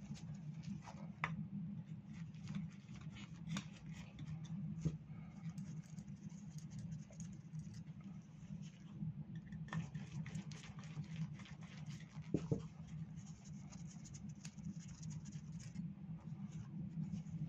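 Small clicks, scratches and handling noises of the float-chamber screws being undone on a scooter's two-stroke carburettor, with a few sharper knocks, the loudest two about two-thirds of the way through. A steady low hum runs underneath.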